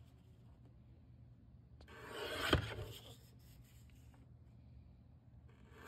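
X-Acto paper trimmer's sliding cutting head drawn once along its rail through a sheet of sticker labels. It makes a swish about two seconds in that swells for about a second and peaks in a sharp click.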